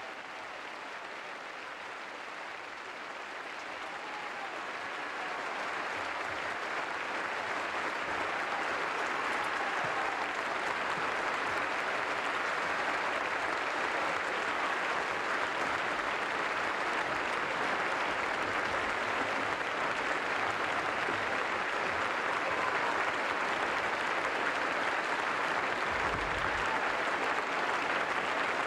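Theatre audience applauding, the clapping swelling over the first few seconds and then holding steady.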